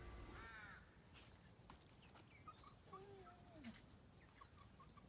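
Near silence: room tone, with a few faint, short squeaky glides about half a second in and around three seconds in.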